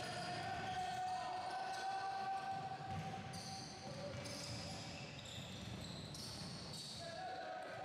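Basketball game in play: the ball bouncing on the wooden court, with a steady mid-pitched tone through the first three seconds or so and a lower one after it.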